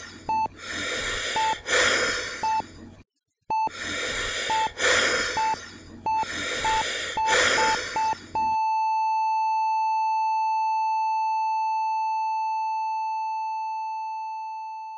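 Laboured, gasping breaths through an oxygen mask, with the short beeps of a heart monitor coming faster and faster. A little past halfway the breathing stops and the monitor gives one continuous flatline tone, the sign of no heartbeat, which slowly fades away.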